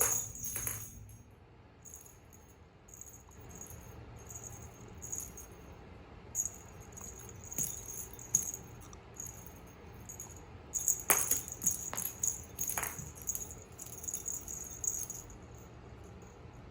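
Small bell jingling on and off in short shaken bursts, with a few sharp knocks about two-thirds of the way in.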